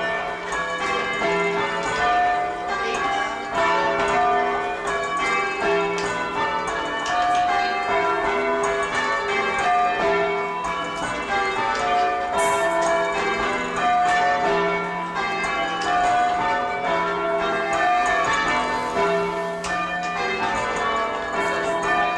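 A ring of church bells change ringing, the strokes following one another at an even pace and overlapping as they ring on, heard from the ringing chamber below. The sixth bell is silent because its clapper has fallen out, leaving a gap where its stroke should come.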